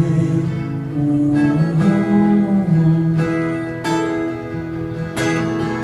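Music: an acoustic guitar strumming a slow chord progression, a new chord struck roughly every second, with no singing.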